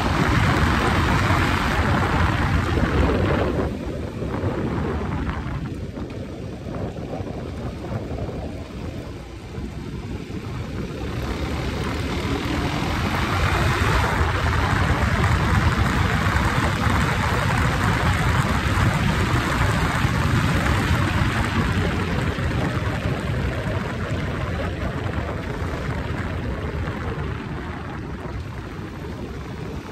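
Motorcycle underway on the road: engine running with the rush of wind over the bike. The sound eases off about four seconds in and builds back up from about twelve seconds, then slowly tapers.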